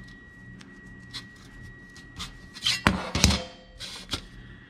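Gloved hands handling a computer hard drive cage: light rubbing and small clicks, with a short burst of loud knocking and clattering about three seconds in.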